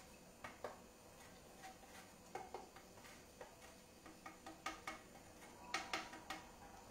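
Hard cheese being grated by hand onto a plate: faint, irregular scrapes and light clicks, coming more often in the second half.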